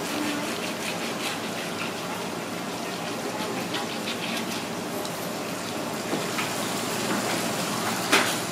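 Running tap water splashing onto a split red cornetfish on a cutting board as hands rub the flesh clean, with small scattered clicks; a single sharp knock stands out near the end.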